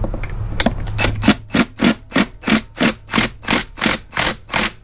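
Cordless impact driver hammering in a run of short bursts, about three a second, loosening the belt tensioner bolt slightly. A couple of knocks come before the bursts start.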